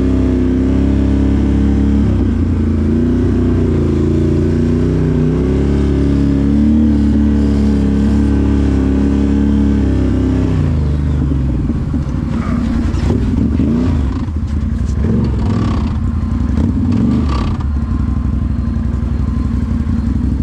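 Can-Am 1000cc off-road vehicle engine running under throttle, its pitch rising and falling for about the first ten seconds, then revving more unevenly with scattered knocks and clatter in the second half.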